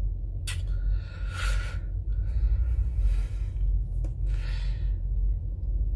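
A man breathing audibly through his nose, with a handful of short exhales and sniffs about a second apart, over a steady low rumble inside a truck cab.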